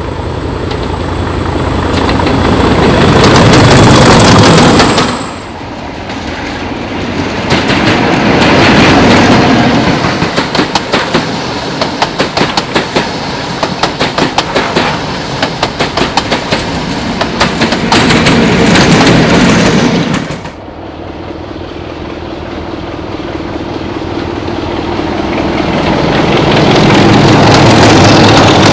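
British railway locomotives passing, in three cut-together takes. First, a locomotive draws near and swells to full volume. Then a train's wheels clatter rapidly and rhythmically over the rail joints as it runs by. Last, another locomotive's steady engine note grows louder as it approaches.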